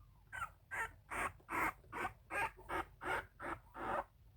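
Young puppy crying in a quick run of short squeaky whimpers, about two or three a second, calling for its mother.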